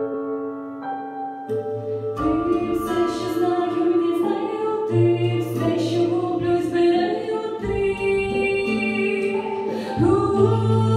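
A young woman singing a pop ballad into a microphone over an instrumental backing track, holding long notes; a bass line and a drum beat come in about two seconds in.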